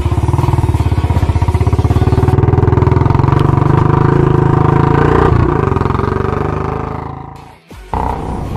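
An engine, motorcycle-like, running with a steady pulsing beat, fading out near the end, cutting out briefly and then running on more quietly.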